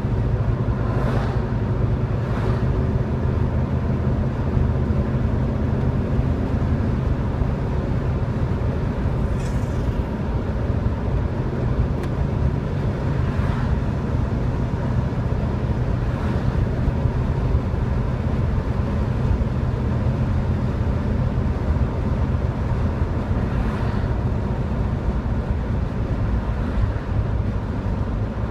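A 1971 Chevrolet Chevelle Malibu at steady cruising speed, heard from inside the car: a constant low engine drone mixed with tyre and road noise. Several oncoming cars pass with brief whooshes.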